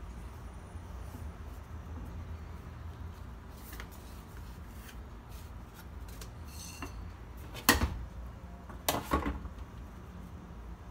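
A metal baking sheet is set down on a countertop with a sharp clank about three-quarters of the way in, then rattles again briefly about a second later. A low steady hum runs underneath.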